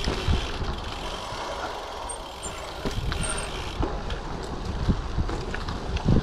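Giant TCX gravel bike rolling over a rough dirt trail on 38 mm WTB Riddler tyres: steady tyre rumble and crunch with scattered sharp rattles and knocks from the bike over bumps, easing a little about two seconds in.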